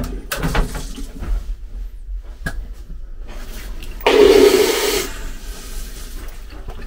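A sudden rush of hissing noise lasting about a second, starting about four seconds in, over a low steady hum with a few light knocks.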